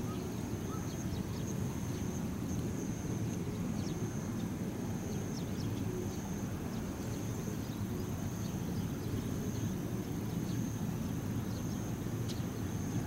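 Open-air rural ambience: a steady low rumble with a thin, continuous high-pitched whine over it and a few faint chirps.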